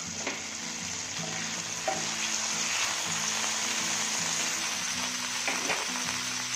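Chopped garlic and ginger sizzling steadily in hot oil in a nonstick frying pan, soy sauce just added, with a wooden spatula stirring through it. Background music plays underneath.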